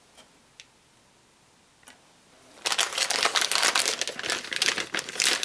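A few faint ticks, then from about two and a half seconds in, plastic lure packaging crinkling and rustling as it is handled and opened.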